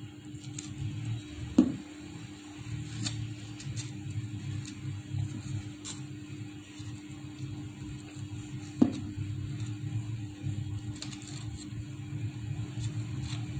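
Paper petals and a plastic glue bottle handled on a tabletop while petals are glued onto a paper flower: faint ticks and rustles, with two sharper knocks, one about a second and a half in and one near nine seconds. A steady low hum runs underneath.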